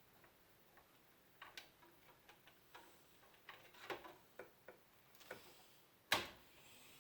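Scattered light clicks and taps of computer hardware being handled, with one louder sharp knock about six seconds in.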